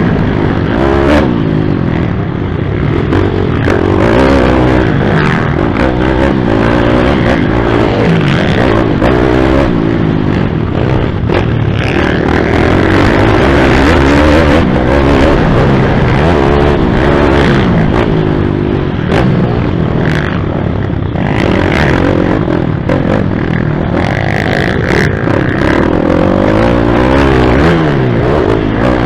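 Pit bike's single-cylinder four-stroke engine revving hard and backing off repeatedly as it races around a dirt track, heard from the rider's helmet, with wind buffeting and rattles from the rough ground.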